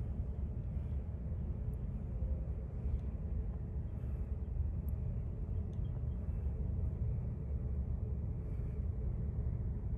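Steady low rumble of a long freight train of covered hopper and tank cars rolling past, with a few faint high ticks.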